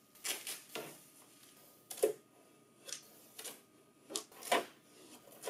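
Packing tape being peeled and pulled off the plastic housing of a printer staple finisher: a string of short, irregular rustles and light plastic knocks, the sharpest about two seconds in.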